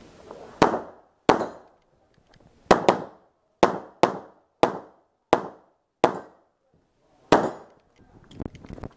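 Semi-automatic pistol firing about ten shots at an uneven pace, some in close pairs, each crack followed by a short echoing tail, as the shooter works through a practical-shooting course of fire.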